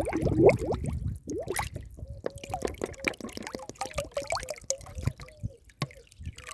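Water bubbling. A quick run of bubbles fills about the first second, then single bubbles follow one after another, each a short upward-pitched blip.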